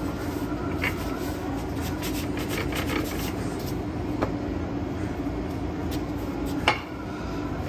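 Rolling pin working pie dough on a counter, with soft rubbing and a few light knocks, the sharpest near the end, over a steady mechanical hum.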